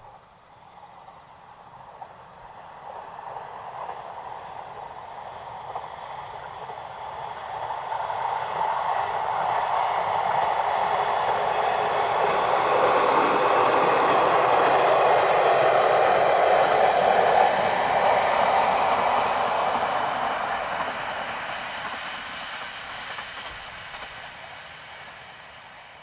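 A two-car orange diesel railcar train passing: it grows louder, peaks about halfway through, then fades away.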